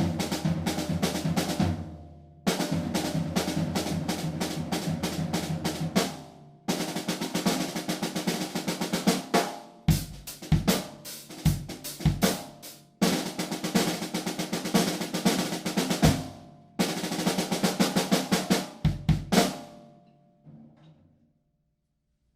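Cheap drum kit fitted with Aquarian heads being played: fast snare and tom rolls and fills, with bass drum kicks joining in the second half. The playing stops about 20 seconds in and the drums ring out briefly.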